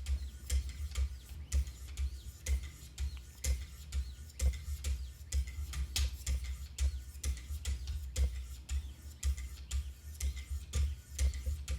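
Wicked Edge diamond stones stroked along a knife edge at 1000 grit: a steady rhythm of short scraping strokes, about two a second, each with a light knock.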